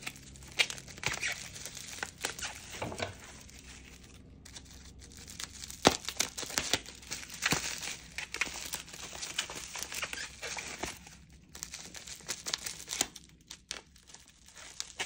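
Plastic bubble wrap crinkling and crackling irregularly as a small wrapped package is handled and cut open with scissors.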